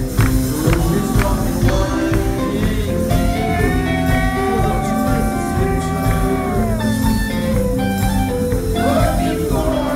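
Live rock band playing on stage, heard from within the crowd: drums, bass, guitars and keyboard. A long held note comes in about three and a half seconds in and slides down in pitch around the seven-second mark.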